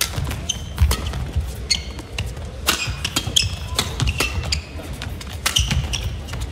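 Badminton rally: a quick run of sharp racket strikes on the shuttlecock, mixed with short high squeaks of court shoes and footfalls on the court mat, over a low hall rumble.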